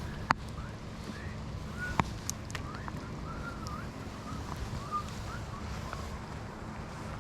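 Small birds chirping in short rising and falling notes over a steady low rumble, with two sharp clicks about a second and a half apart.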